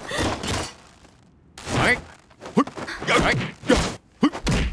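Film fight sound effects: a rapid run of blows and impacts, with short grunts and shouts from the fighters, and a brief lull about a second in.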